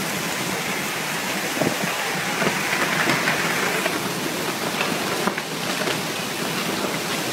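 Torrential wind-driven rain pouring down, a steady, even rush with no let-up.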